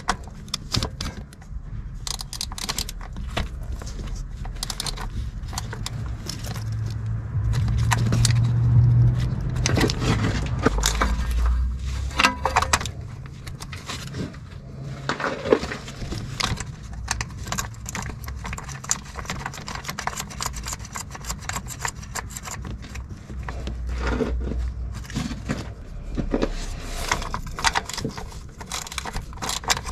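Metal tools and parts clinking and scraping in irregular short clicks, with a stronger low hum for a few seconds near the middle.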